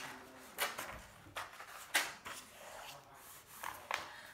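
Pages of a paperback picture book being flipped and pressed flat: several brief paper flaps and rustles, a few of them sharp.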